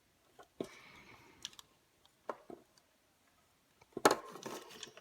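Scattered small clicks and taps of an opened hair dryer's parts and tools being handled, with a louder knock and short clatter about four seconds in.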